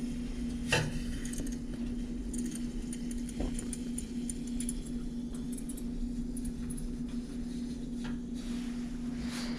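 Priming flame of an MSR Firefly white-gas stove burning with a steady low rush and scattered faint crackles, over a steady low hum. The stove is still in its warm-up stage: the cold body has not yet heated enough for the burner to run on vaporized fuel.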